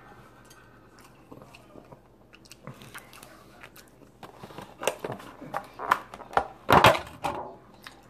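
A person chewing and biting a piece of sushi roll close to the microphone. It is faint at first, then a run of louder crunching chews comes in the second half.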